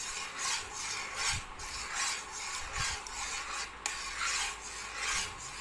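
A utensil scraping around the bottom of a stainless steel pot while stirring black grass jelly mixture that is starting to thicken. It makes a rhythmic rasping creak at about two strokes a second.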